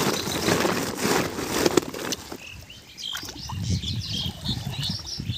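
Water splashing and sloshing around a man wading waist-deep while handling a fishing net, lasting about two seconds. After that, short repeated bird chirps are the main sound.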